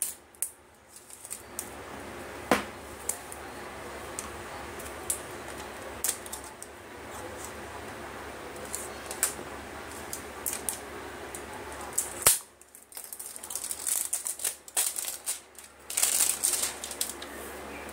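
Plastic shrink wrap on a smartphone box being cut with a folding knife and pulled off: scattered clicks and taps of handling, then dense crinkling and rustling of the plastic over the last five seconds or so.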